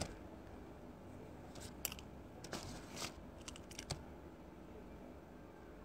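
Quiet room tone with a scattering of faint, short clicks and taps, most of them between about a second and a half and four seconds in.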